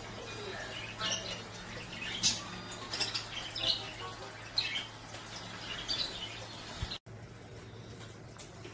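A bird chirping: a string of short, high chirps over a steady low hum, broken off by a sudden cut about seven seconds in.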